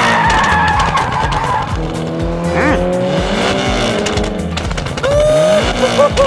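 Car-racing sounds, engines revving in rising and falling glides with tyres squealing, over background music.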